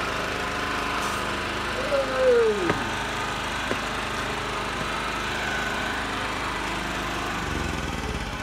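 Drain-cleaning machine's motor running steadily while it drives a spiral cable into a blocked sewer line, with a short falling whine about two seconds in; the running eases off near the end.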